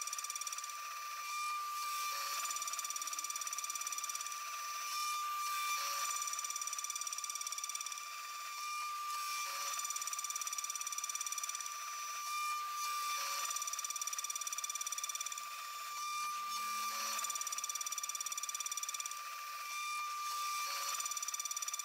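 CNC milling machine's end mill cutting steps into a metal block: a steady high-pitched cutting whine. The level dips briefly every few seconds as the tool moves from one pass to the next.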